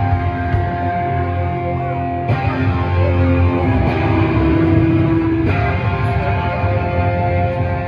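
Live band playing, electric guitars ringing out sustained chords over bass and drums, with the chord changing about two seconds in and again about five and a half seconds in.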